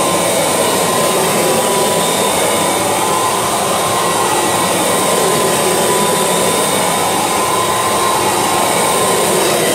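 Kirby Legend II upright vacuum cleaner running, pushed back and forth over a carpet mat while it pulls out leftover carpet powder. It gives a steady, loud noise with a whine that wavers slightly in pitch.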